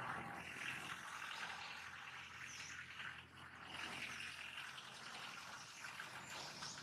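Faint outdoor ambience: a steady, even hiss with no distinct event standing out.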